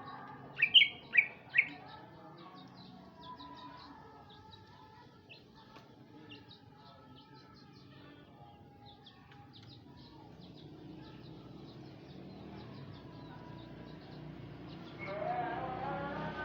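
Male Sumatran green leafbird (cucak ijo) singing: four loud sharp chirps about a second in, then a run of quick, thin high notes that fades out. Near the end, a louder rising engine-like noise comes in.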